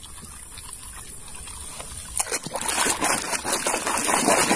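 Muddy water sloshing and splashing as a plastic toy is swished through it by hand, starting about two seconds in and growing louder.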